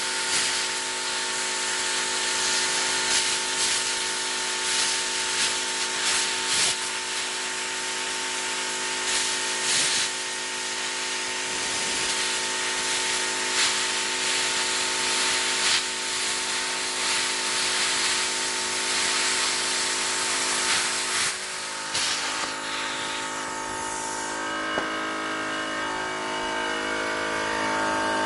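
Lotos LTPDC2000D plasma cutter cutting through 1/8-inch steel plate: a steady hiss of the arc and air with small crackles, which stops about 23 seconds in. A steady machine hum runs underneath and carries on after the cut stops.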